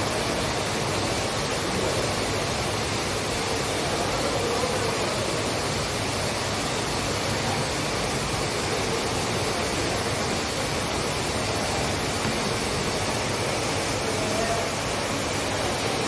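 Waterfall pouring down a high rock cliff into a pool below, a steady even rush of falling water.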